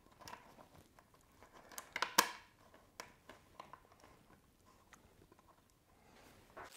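Faint handling noise of hands fitting a brake-line clip and small bolt to a motorcycle fork guard: light rustling and scattered small clicks, with a sharper click or two about two seconds in.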